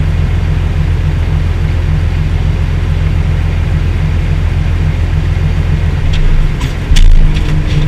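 Tractor engine running steadily, heard from inside the cab as a low, even hum. Near the end a few sharp clicks and knocks come in and the engine gets louder.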